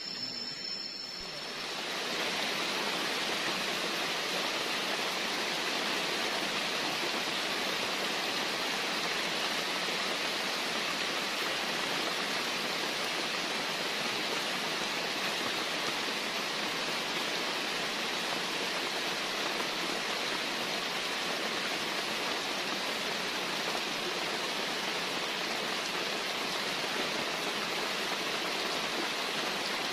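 Steady, even rush of heavy rain and running water in the rainforest, swelling in about two seconds in and then holding unchanged.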